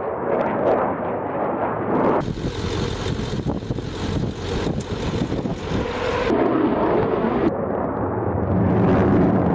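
Jet noise from a Lockheed Martin F-22 Raptor's twin F119 turbofan engines, a steady roar as the fighter flies past overhead. The roar changes suddenly about two seconds in and again about six and seven and a half seconds in, where separate recordings are cut together.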